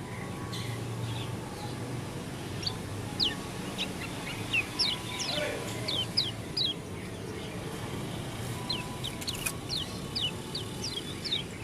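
Pleci dakun white-eye singing: a loose run of short, high chirps, each sliding quickly downward, a song that is called strange.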